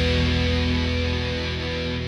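Background rock music with guitar: a held chord slowly fading.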